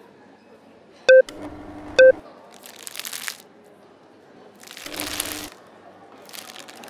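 Two short electronic blips about a second apart, followed by three bursts of paper rustling and crinkling as a sheet of paper is handled and folded.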